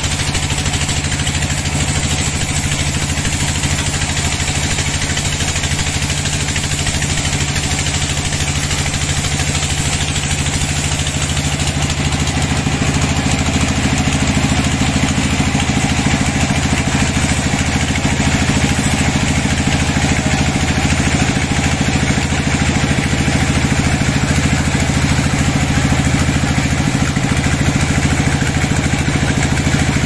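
Horizontal band sawmill running, its band blade cutting lengthwise through a long teak log: a steady machine hum under an even hiss from the blade in the wood. It gets slightly louder partway through.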